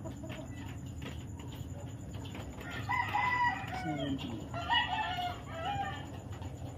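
A rooster crowing twice, the first crow about three seconds in with a falling tail and the second just before the end, over steady low background noise.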